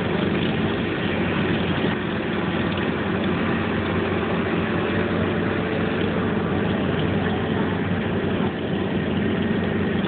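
Case skid steer loader's diesel engine running steadily at an even pitch as the machine manoeuvres.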